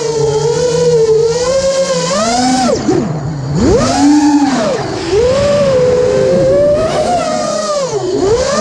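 A 5-inch FPV freestyle quadcopter's brushless motors and propellers whining, heard from its onboard camera, the pitch swooping up and down with the throttle. About three seconds in the whine drops low, then surges back up sharply.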